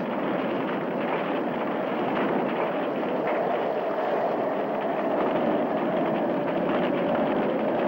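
Hurricane wind blowing steadily: a dense rush with a faint wavering howl running through it.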